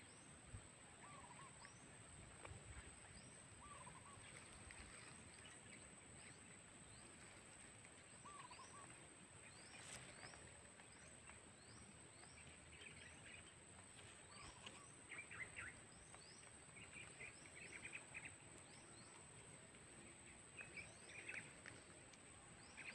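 Faint outdoor ambience with birds giving short, scattered chirps and calls, more of them in the second half, over a thin steady high-pitched tone.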